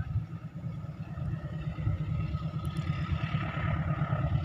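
Diesel locomotive engine rumbling from an approaching train not yet in sight, growing slowly louder.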